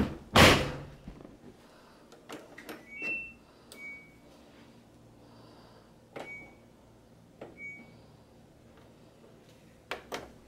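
A front-loading washing machine's door is shut with a loud thud about half a second in. Then the control panel gives about five short high beeps as its buttons are pressed to set the wash cycle, with a few clicks near the end.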